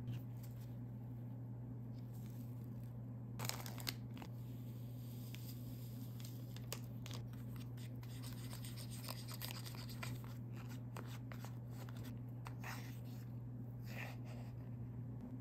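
Small plastic spoon stirring and scraping candy-kit powder and water in a plastic tray, a run of light scrapes and clicks as the mix clumps into a dough. There is a louder rustle about three and a half seconds in, and a steady low hum underneath.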